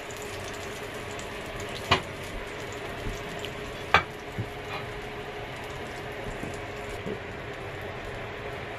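Butter and meat juices sizzling steadily on a hot stovetop grill pan after the steaks come off, with two sharp knocks about two seconds apart.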